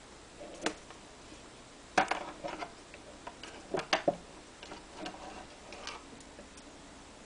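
Scattered small clicks and taps from handling a pen's plastic parts while tying fishing line onto it, the sharpest about two seconds in and a quick cluster about four seconds in.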